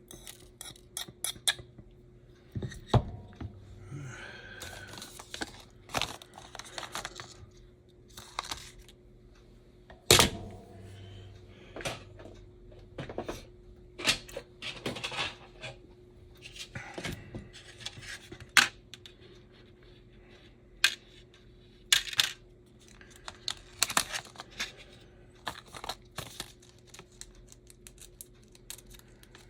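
Small plastic parts packets being handled and worked open, with crinkling and tearing noises and scattered sharp clicks and taps of small parts on the bench.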